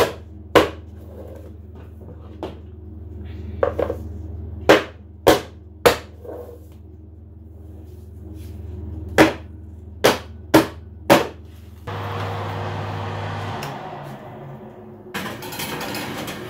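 Round metal cake tins full of batter being tapped down hard on the counter to knock the trapped air out: about ten sharp knocks in irregular groups. Near the end comes a rushing noise, then a metal scrape as a tin is set on the oven rack.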